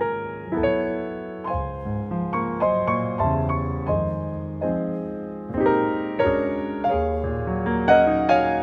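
Piano music: notes and chords struck one after another, each ringing and fading before the next.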